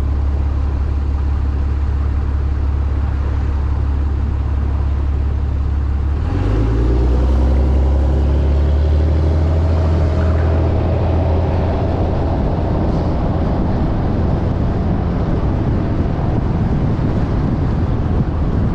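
Vehicle engine idling with a deep steady rumble, then from about six seconds in revving up, its pitch rising as it accelerates away from a stop, and settling into steady driving noise.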